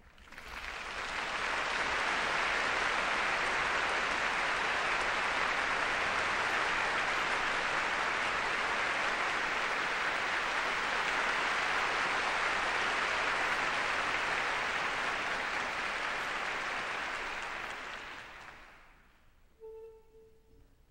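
Concert hall audience applauding steadily, dying away over the last few seconds. A brief faint tone sounds just after the applause ends.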